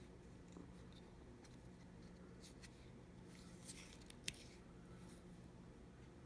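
Near silence: a faint steady low hum with a few light clicks from small hand tools, mini slip-joint pliers, being handled. There is one sharper click about four seconds in.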